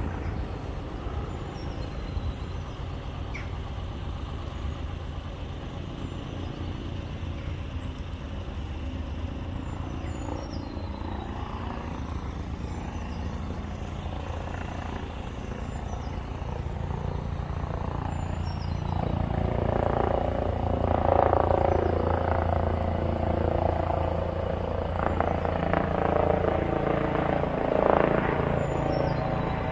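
Narrowboat's diesel engine running steadily with a low hum. It grows louder about two-thirds of the way through.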